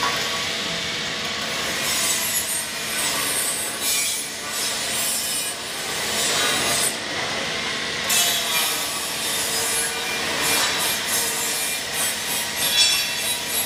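Stainless steel pallet lift and roller conveyors of a bag handling system running: a steady rasping, rubbing mechanical noise with a faint hum underneath.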